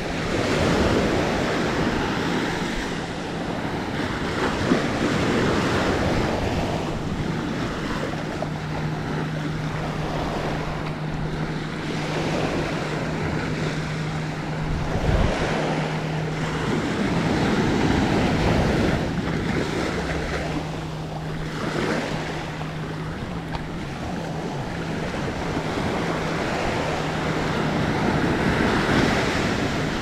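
Small waves breaking and washing up the sand at the water's edge, swelling and ebbing every few seconds, with wind on the microphone. A low steady hum runs through most of it.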